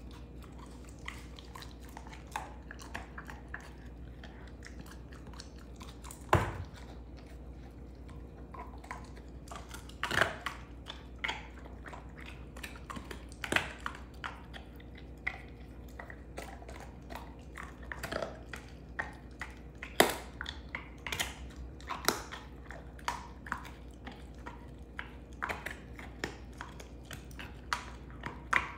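A Belgian Malinois chewing a beef rib bone: irregular sharp crunches and cracks of bone between its teeth, with loud cracks about six seconds in and again around twenty seconds.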